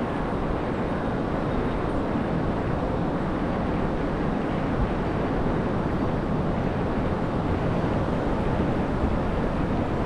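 Ocean surf breaking on a sandy beach: a steady wash of noise with no single wave standing out.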